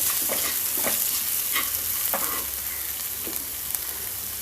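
Chopped onion, tomato and capsicum frying in oil in a kadai: a steady sizzle, with a spoon scraping through the pan several times as the vegetables are stirred.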